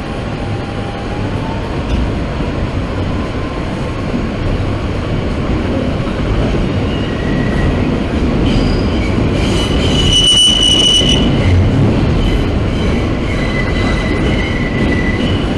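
New York City subway car running between stations, heard from inside: a loud, steady rumble of wheels and running gear, growing slightly louder. A high-pitched wheel squeal sounds for a couple of seconds past the middle, and a fainter one near the end.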